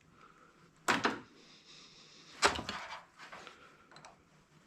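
Two sharp knocks about a second and a half apart, then a few fainter clicks: scrap wire and parts being handled and set down on a work surface.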